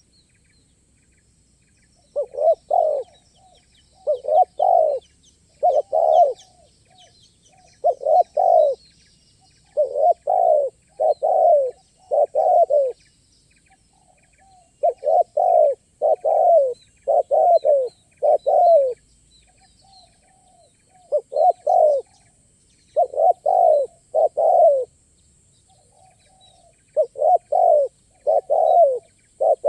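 Spotted doves cooing: repeated phrases of two to four low, throaty coos, starting about two seconds in and coming every couple of seconds. Faint chirps from small birds sound behind them.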